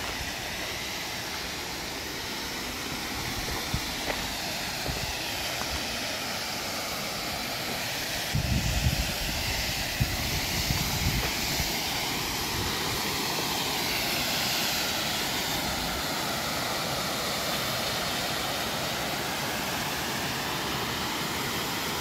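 Waterfall rushing: a steady hiss of falling water, with a few low thumps about eight to eleven seconds in.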